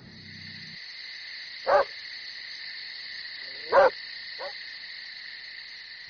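Night ambience: a steady high chirring of insects, with an owl hooting three times, the last call short.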